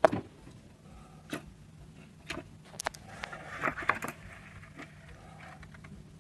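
Scattered small clicks and taps, with a brief rustle about halfway through, from the insect zapper's circuit board and plastic housing being handled.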